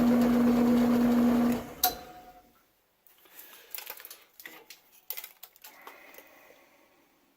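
Drill press motor running with a steady hum, switched off about a second and a half in and spinning down to a stop. A sharp click comes as it winds down, then faint clicks and rattles of handling.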